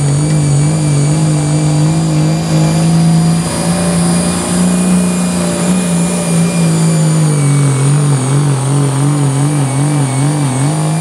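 A competition pulling vehicle's engine held at high revs under load through a pull, its note steady with a slight waver and a small dip about seven seconds in. Steady high-pitched whines sit above the engine note.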